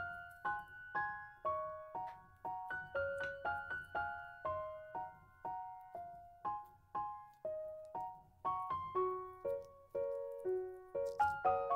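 Background music: a solo piano playing a slow, gentle melody, one note struck about every half second and each dying away.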